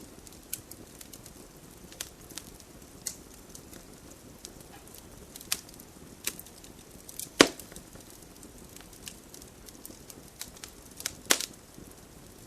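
Wood campfire crackling: irregular sharp pops and snaps over a low steady hiss, with the loudest snap about halfway through and another strong one near the end.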